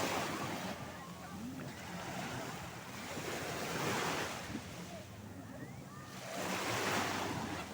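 Sea waves washing in, the noise swelling three times, a few seconds apart.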